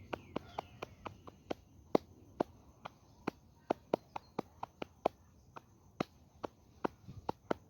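Paó, the Candomblé ritual clapping: cupped hands clapping a long run of muffled claps, about three a second in uneven groups.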